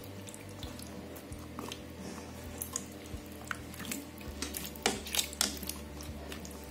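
Silicone spatula stirring diced raw potatoes in water in a multicooker's bowl: soft wet squishing and scraping, with a few sharper knocks against the bowl about five seconds in, over a low steady hum.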